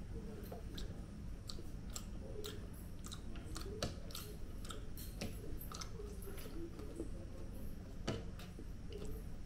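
A person chewing tandoori chicken and biryani, with many small irregular wet clicks and smacks of the mouth.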